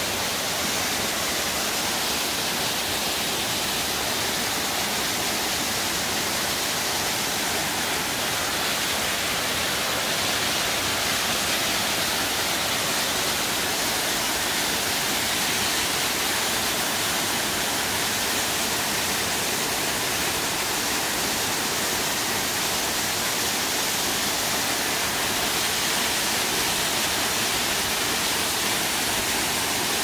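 Waterfall pouring down steep rock faces: a steady, even rush of falling water.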